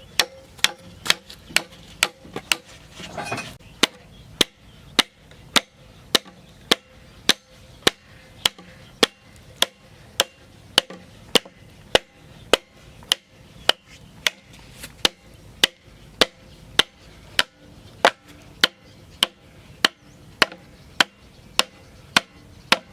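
A hand tool striking bamboo over and over in an even rhythm, about three sharp blows every two seconds.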